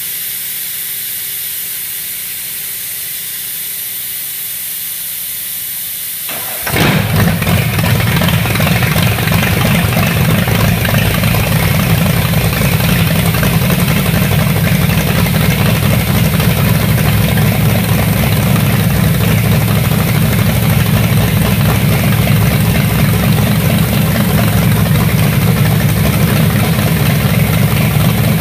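A steady hiss for the first six and a half seconds or so, then a Ford 351 Cleveland small-block V8 on Holley Pro-Jection four-barrel throttle-body injection fires up suddenly and runs steadily through open headers.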